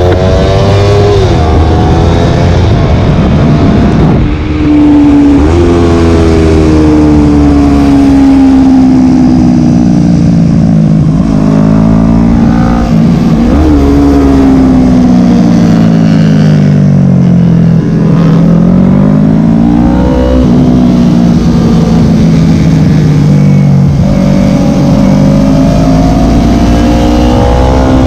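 Yamaha sport bike engine revving hard on a track lap. Its pitch climbs under acceleration and drops suddenly at gear changes, several times. It sinks in long falls where the bike slows for corners.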